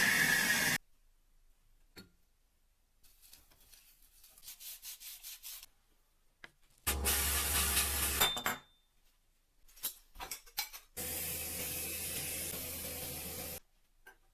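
Cut-together sounds of work on an old metal kerosene lamp: a run of quick rubbing strokes, a few clicks and clinks of metal and glass parts, and several bursts of steady rushing noise that stop abruptly.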